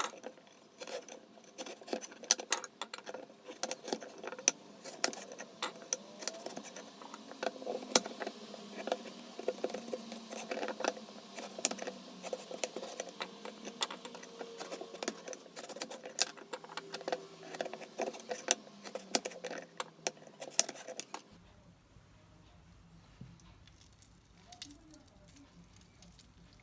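Many quick small clicks, taps and clinks of things being handled, such as utensils or dishes, that stop about three-quarters of the way through, leaving only a faint low hum.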